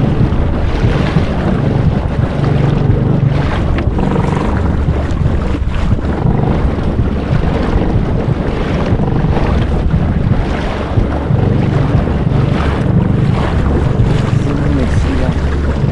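Wind buffeting the microphone on an inflatable boat at sea, over the steady running of the boat's motor and water splashing against the hull.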